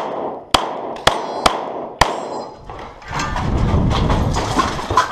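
Five semi-automatic pistol shots in about two seconds, unevenly spaced, followed by about two seconds of low rushing noise.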